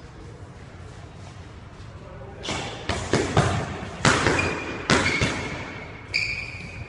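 Boxing gloves landing punches in sparring, about six sharp smacks from about two and a half seconds in, each echoing off the bare walls of a squash court. Short sneaker squeaks on the wooden floor come between the later punches.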